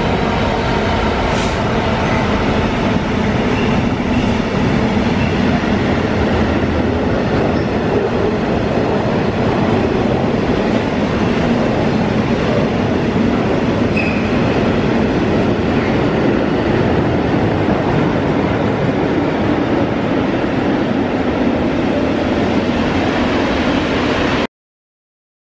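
A Class 66 diesel-electric freight locomotive, with its two-stroke V12 engine, passing at speed, followed by a long train of covered steel-coil wagons rolling by with a steady rumble of wheels on rail. The sound cuts off abruptly about a second before the end.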